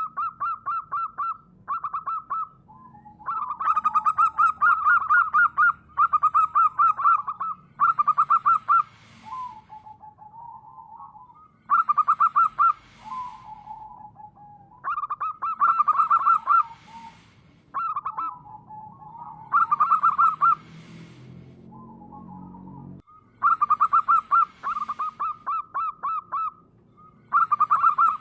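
Zebra dove (perkutut) cooing: phrases of fast, staccato coos repeated every few seconds, with lower, softer notes between the phrases.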